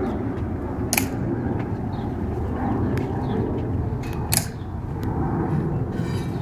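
Sharp clicks of Tomb Guard sentinels' metal-tapped heels on the stone plaza as they march and halt, a loud click about a second in and another a little after four seconds, with fainter taps between, over a steady outdoor rumble.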